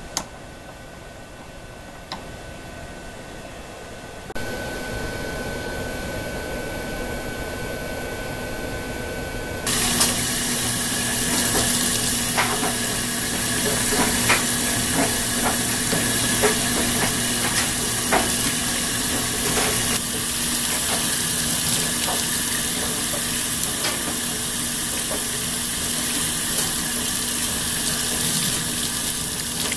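Quiet room tone with a couple of light clicks, then about ten seconds in a faucet starts running steadily into a utility sink. Scattered small clicks and knocks come over the water as a brass checker is scrubbed with a toothbrush under the stream.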